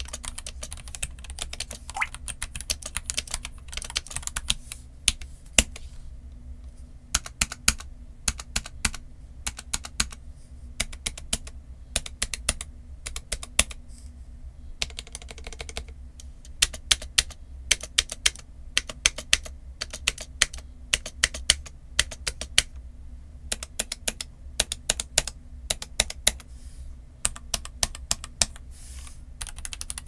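Royal Kludge RK F68 low-profile mechanical keyboard, with stock RK LoPro Red linear switches and LoPro keycaps, being typed on. There is a fast run of keystrokes for the first several seconds, then slower separate key presses, some in quick pairs, with a short break about halfway.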